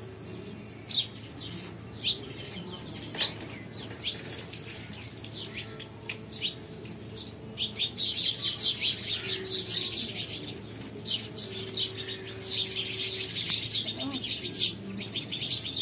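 Small birds chirping: scattered single chirps at first, then from about eight seconds a dense, fast chattering chorus.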